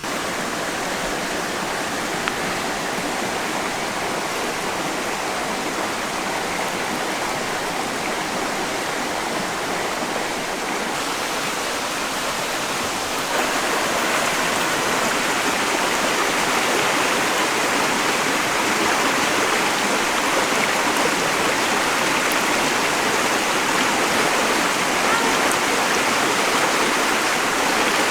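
Waterfall rushing: a steady, loud hiss of falling water that gets louder about 13 seconds in.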